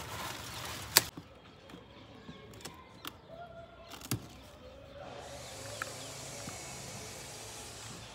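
A sharp click about a second in, then a few light snips of small garden pruning shears cutting plant stems. From about halfway a steady rushing background noise sets in.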